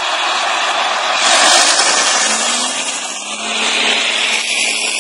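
John Deere self-propelled forage harvester running at work, a loud steady mechanical noise of engine and crop-processing drive. It gets a little brighter about a second in, and a lower engine note rises slightly about two seconds in.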